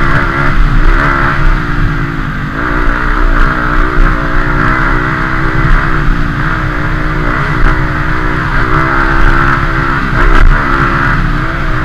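Dirt bike engine running hard, its pitch rising and falling continually as the throttle is worked.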